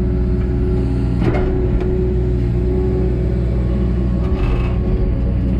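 Takeuchi TB285 mini excavator's diesel engine running steadily under working load, heard from inside the cab, with two brief clatters about a second in and again near the four-second mark as the bucket works the soil.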